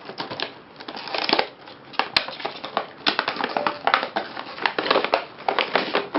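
Packaging being handled as a product box is opened: a dense, irregular run of crinkling crackles and small clicks.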